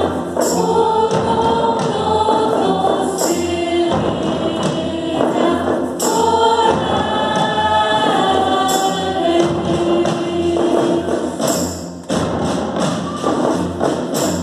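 A choir singing a Christmas song over a group of drums, with steady low drum beats and a sharp crashing hit about every three seconds.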